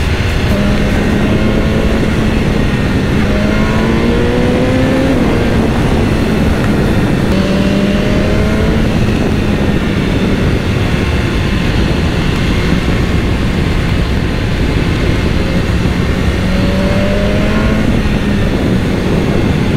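BMW S1000R's inline-four engine running at a steady road speed, its revs rising for a moment a few seconds in and again near the end, under heavy wind noise on the helmet or bike-mounted GoPro microphone.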